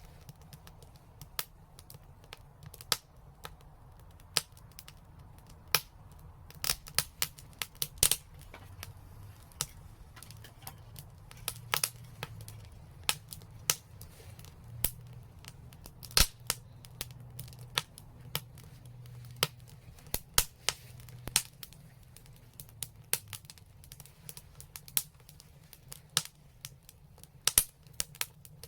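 Wood fire in a fireplace crackling, with irregular sharp pops and snaps, a few much louder than the rest, over a low steady rumble.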